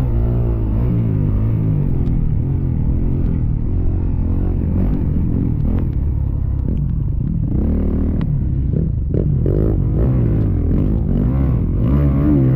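Motocross dirt bike engine heard close up from an onboard camera at race pace, its pitch climbing and dropping again and again as the throttle is opened and shut through the jumps and corners. Several sharp knocks and clatters come between about six and nine seconds in.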